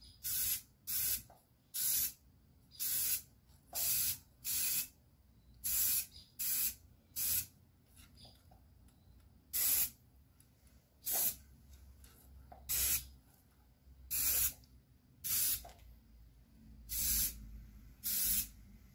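Aerosol spray-paint can hissing in short, quick passes, about fifteen brief sprays of under half a second each at an uneven pace, with a pause of about two seconds in the middle.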